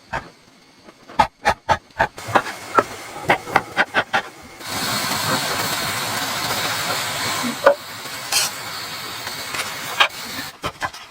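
A run of sharp clicks or knocks, then a loud steady hiss that starts about four and a half seconds in and weakens after about eight seconds, with a few more clicks near the end.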